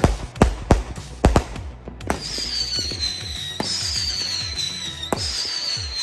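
Backyard aerial fireworks: a quick run of sharp bangs for the first two seconds, then three whistling fireworks one after another. Each starts with a pop and gives a high whistle that slowly falls in pitch for about a second and a half.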